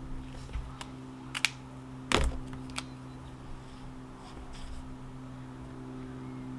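A few sharp clicks and taps, the loudest a little after two seconds in, over a steady low hum.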